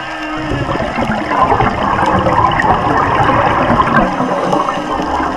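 A dense rush of bubbling air underwater, building about a second in and going on for several seconds. Faint curving whale song sits underneath at the start.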